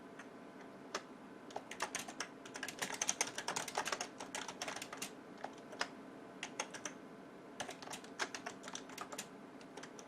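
Computer keyboard being typed on: irregular runs of key clicks, fastest and densest from about two and a half to five seconds in, over a faint steady low hum.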